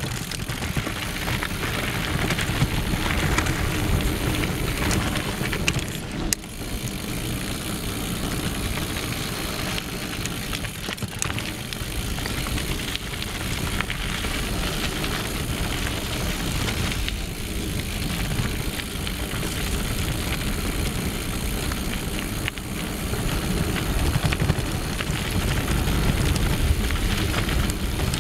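Mountain bike ridden fast over a dirt and gravel trail: a steady rumble of tyres on the loose surface with many small knocks and rattles, and wind rushing on the camera microphone.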